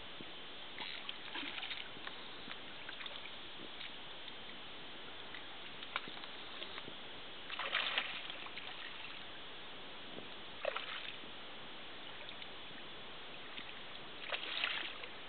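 A hooked barbel, played on a fly line, thrashing and splashing at the water's surface in several short bursts, the loudest about eight seconds in, over a steady background hiss.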